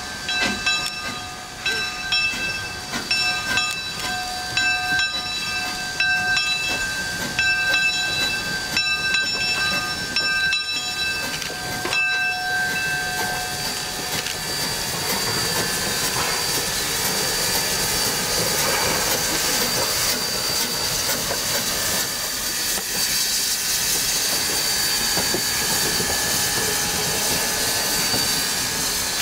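Quincy Railroad No. 2, a 2-6-2T steam tank locomotive, moving slowly past at close range. Its bell rings about once a second for roughly the first half, then a steady steam hiss takes over as the engine comes alongside.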